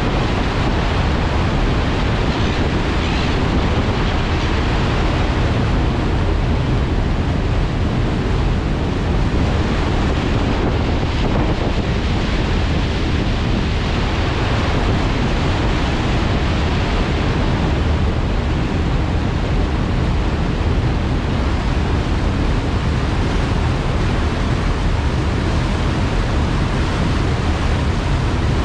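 Steady rush of a ferry's propeller wake churning astern, mixed with wind buffeting the microphone.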